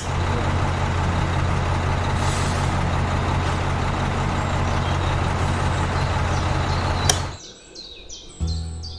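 Heavy vehicle engine running steadily with a low hum. It starts abruptly and cuts off about seven seconds in, just after a sharp click.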